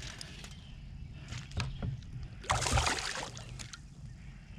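Water splashing at the side of a kayak, with one short loud splash about two and a half seconds in and a few small knocks before it, as a hooked channel catfish is brought up close.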